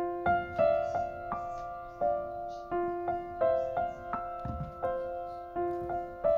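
Background piano music: a slow, gentle melody of single struck notes that ring and fade, a new note about every two-thirds of a second.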